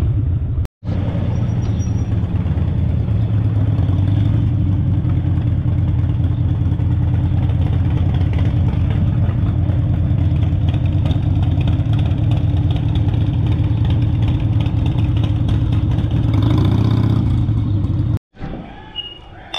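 Harley-Davidson V-twin motorcycle engine running steadily under way, with a brief rise and fall in pitch near the end. It then cuts off abruptly, giving way to a quieter room with dishes clinking.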